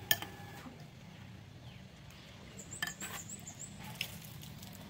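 Utensils clicking lightly against a ceramic soup bowl: a sharp tap at the start, then a few small clicks as chopsticks are handled, over a steady low hum. Faint high chirping can be heard in the middle.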